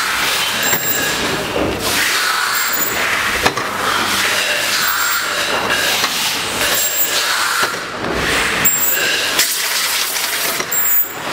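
Running machinery on a lotion-pump assembly line: a loud, steady din with scattered clicks and a short high tone that repeats about every two seconds.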